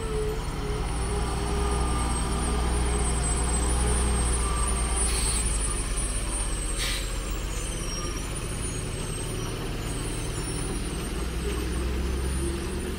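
Heavily loaded multi-axle lorry's diesel engine running low and steady as it crawls slowly round a tight bend, a little louder as it passes close. Two short air-brake hisses come about five and seven seconds in.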